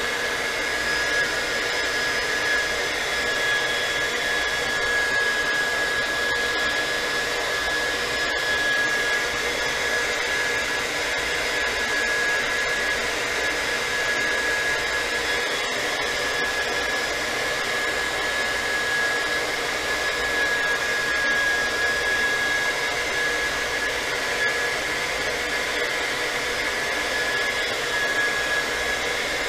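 Handheld hot-air blower running steadily, with a constant high whine over its fan noise. It is heating a phone's glass screen to soften the adhesive beneath it so the glass can be pried from the frame.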